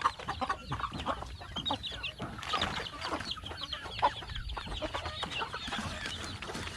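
A flock of domestic chickens clucking and calling, many short overlapping calls, as they are given feed.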